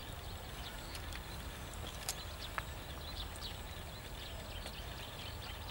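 Birds chirping over a low steady rumble, with a couple of sharp crunches about two seconds in as crispy roast pig skin is bitten and chewed.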